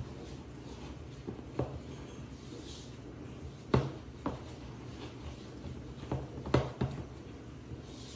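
Spatula beating a thick, sticky yeast batter in a mixing bowl: soft stirring and scraping, with several sharp knocks of the spatula against the bowl, two of them close together about six and a half seconds in.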